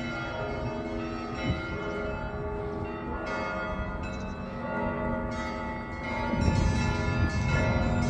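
Russian Orthodox cathedral bells ringing for Easter: several bells of different pitches struck in overlapping peals, the tones of each strike hanging on under the next. The ringing gets louder from about six seconds in.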